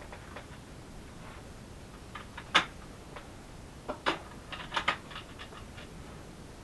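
A handful of short, sharp metallic clicks: the bolt of a CZ 457 bolt-action .22 LR rifle being worked to chamber the next round. The clicks come once about two and a half seconds in, then in a small cluster a second and a half later.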